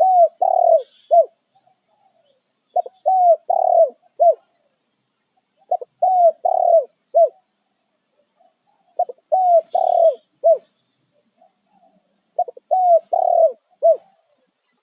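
Spotted dove cooing, its call to others of its kind: five phrases about three seconds apart, each a quick run of four or five mellow coos, some dropping in pitch at the end.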